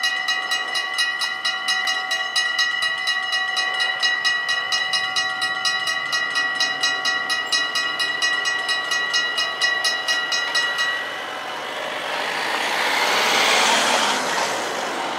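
Mechanical bells of a Dutch level crossing ringing rapidly, about four strikes a second over a steady ringing tone, while the crossing barriers lower; the bells cut off about eleven seconds in, once the barriers are down. A rushing noise then swells and fades near the end.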